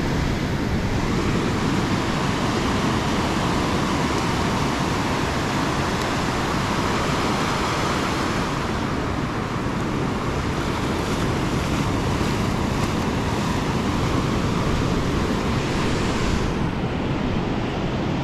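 Ocean surf rushing steadily on a beach, mixed with wind noise on the microphone; the upper hiss thins out near the end.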